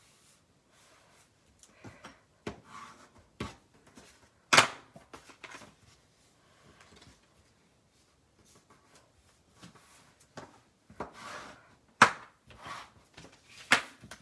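Paper being folded over the edges of a journal cover and pressed down by hand: scattered rustling and rubbing with several sharp taps, the loudest a little over four seconds in and again around twelve seconds.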